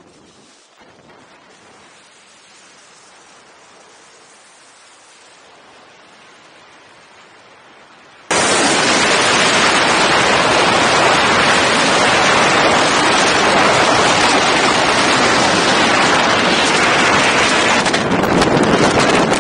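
Faint hiss, then about eight seconds in a sudden switch to loud, steady wind rush buffeting the microphone of a camera mounted on an ultralight aircraft's wing strut in flight.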